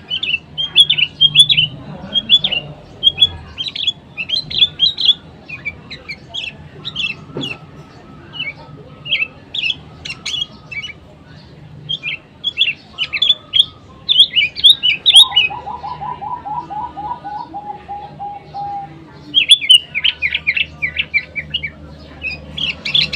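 Bulbuls (sooty-headed and yellow-vented) calling, with bursts of quick, high chirping notes. Around the middle comes a lower run of about fifteen evenly repeated notes, lasting some four seconds.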